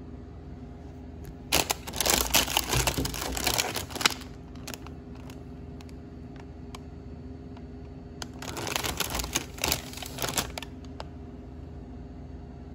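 Plastic cookie-packet wrapper crinkling as it is handled, in two bursts of crackling: one about a second and a half in, another around eight seconds in. A steady low hum runs underneath.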